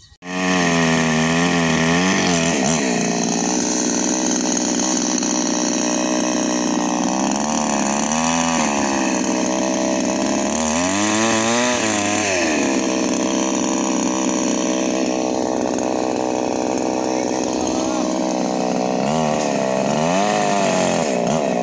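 Kingpark two-stroke petrol chainsaw running at high revs while cutting into a tree trunk. Its pitch sags and recovers several times as the chain bites into the wood and the engine comes under load.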